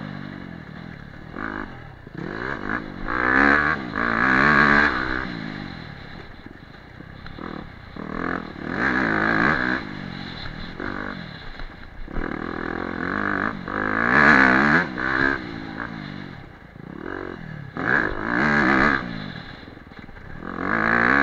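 Dirt bike engine revving up and dropping back again and again as the throttle is opened and closed, its pitch sweeping up and down, with the loudest surges about 3 to 5 seconds in, around 9 and 14 seconds, and near the end.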